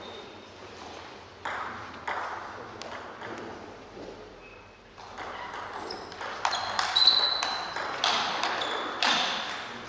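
Table tennis ball clicking off the rackets and the table, each hit echoing in the hall. A couple of hits come about one and a half seconds in, then a rally starts about five seconds in with hits roughly every half second.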